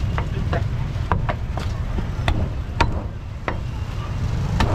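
A heavy meat cleaver chopping roast pork leg on a thick round wooden chopping block: about nine sharp, unevenly spaced chops, over a steady low rumble.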